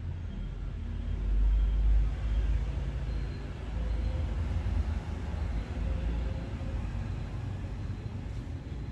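Low rumble of passing road traffic that swells about a second and a half in, then settles to a steady drone.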